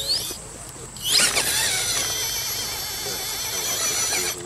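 Electric motor and gear drivetrain of a scale RC rock crawler whining under throttle as it climbs over rocks. A short rising whine at the start, then about a second in a loud, steady, high whine that holds for over three seconds and cuts off near the end.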